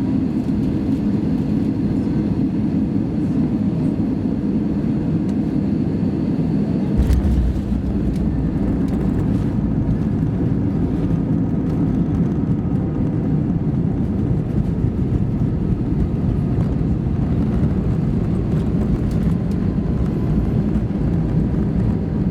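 Airbus A320 cabin noise: a steady rumble of engines and airflow. About seven seconds in there is a single thump, and a deeper low rumble continues after it, fitting the main wheels touching down and rolling on the runway.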